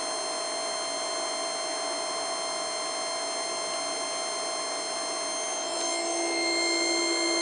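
Longevity Resources EXT120 ozone generator running, making ozone from tank oxygen. It gives a steady hum of several held tones over a hiss. About six seconds in, a lower tone joins and the sound grows slightly louder.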